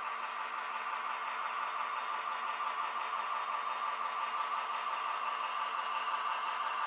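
Onboard sound system of a Broadway Limited Paragon 2 HO-scale EMD SW7 switcher model, playing a diesel engine running steadily through the model's small speaker. It grows a little louder as the locomotive passes close.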